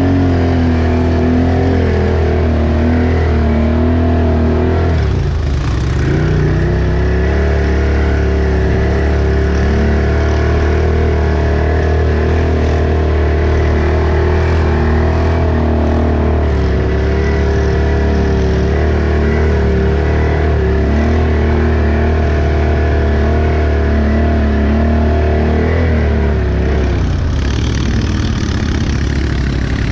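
Off-road vehicle engine running at steady throttle, its pitch dropping about five seconds in, then climbing back and holding; it eases off again near the end.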